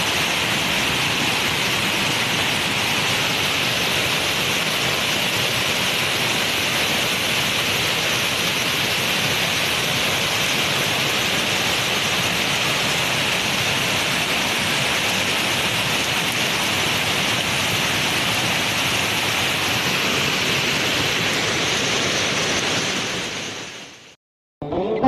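Heavy rain falling as a steady, even hiss that fades out near the end.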